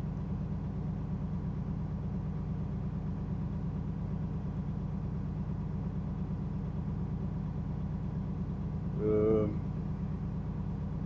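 Diesel semi-truck engine idling while parked, a steady low hum with a fast, even pulse. About nine seconds in there is a brief murmured voice.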